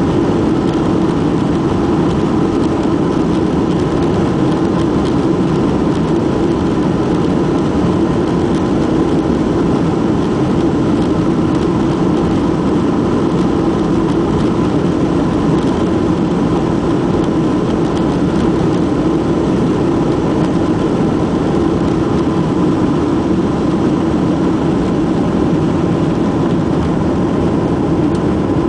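Boeing 737-800's CFM56-7B turbofan engines at takeoff thrust during the takeoff roll, heard from inside the passenger cabin: a loud, steady engine noise with a faint steady tone in it.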